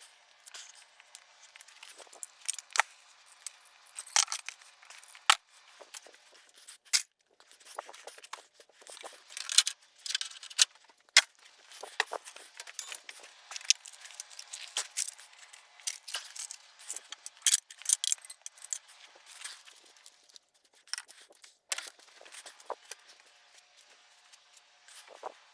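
Small metal screws clinking and rattling as they are gathered up by hand, with irregular sharp clicks and taps.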